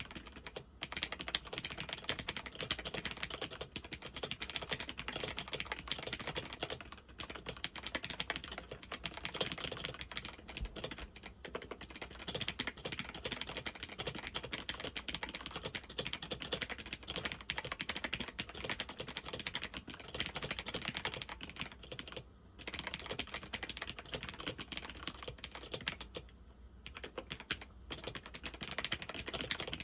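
Continuous typing on a Zenith ZFL-181-93 laptop keyboard with Alps SKFL switches and doubleshot keycaps: a dense run of key clicks and bottom-outs, pausing briefly about two-thirds of the way in and again near the end. Many of the switches are in worn condition, with quite a bit of binding.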